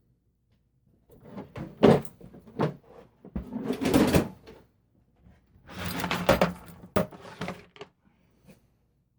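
Metal fork parts and tools being handled and set down on a workbench: three bursts of knocking, clicking and rustling, each with a few sharp clicks.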